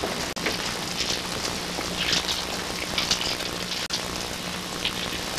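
Steady hiss with a low hum under it, the background noise of an old videotape soundtrack. It cuts out for an instant twice, once near the start and once near the end.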